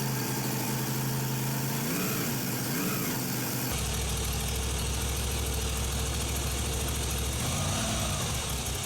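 Moto Guzzi V85TT's transverse V-twin engine idling steadily, with a deeper low hum coming in about four seconds in.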